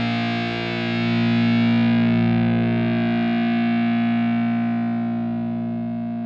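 The song's final chord, held as one unchanging sound and slowly fading, its brightness dying away first.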